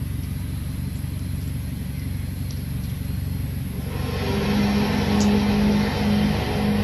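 A so-called 'sky trumpet' noise: a steady low rumbling drone, joined about four seconds in by a long, held horn-like tone that grows louder, likened to a shofar.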